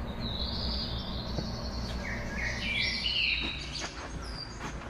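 A songbird singing: a short series of high chirping phrases, loudest in the middle, over a steady low background rumble.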